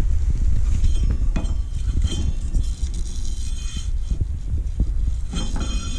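A belt pulley on a Ferris IS1000 zero-turn mower, spun by hand with the belt off, its bearing turning with metallic clinking and rattling. The bearing is noisy, but not horribly so.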